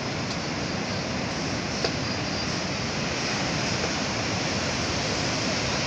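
Ocean surf: rows of waves breaking and foam washing up onto a flat sandy beach, a steady rushing noise.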